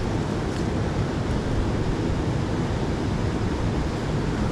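Steady rushing of mountain stream water.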